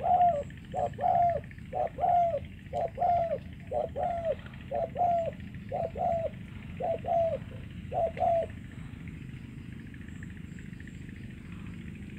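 Spotted dove cooing: a quick run of short coos, loosely in pairs about once a second, that stops about eight and a half seconds in.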